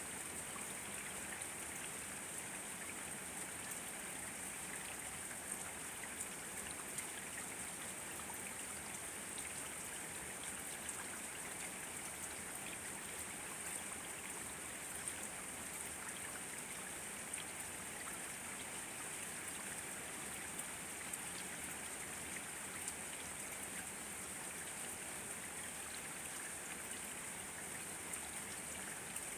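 Steady rain with many small drops pattering, an even hiss with scattered light ticks of individual drops.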